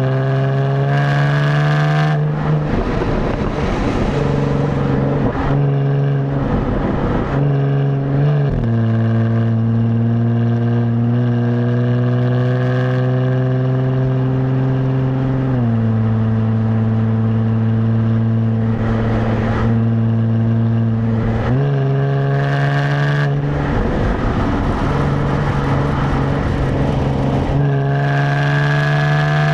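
Jaguar F-Type's stock exhaust recorded at the tailpipe while driving: a steady droning engine note that steps down in pitch twice and rises again once, with rough, gravelly stretches in between.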